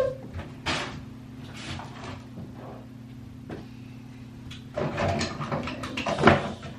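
Cabinet or drawer being opened and items knocked and shuffled about while someone rummages for hair products: scattered knocks and rustles, busiest near the end with one sharper knock, over a steady low hum.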